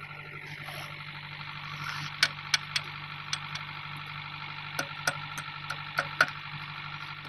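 Sharp metallic clinks of a hand wrench working the retaining bolt on a JCB 3DX backhoe's bucket pin: about a dozen irregular clicks over four seconds, starting about two seconds in, over a steady low hum.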